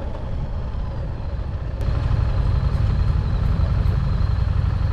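Harley-Davidson Street Rod 750's V-twin engine running, a steady low rumble that suddenly gets louder about two seconds in.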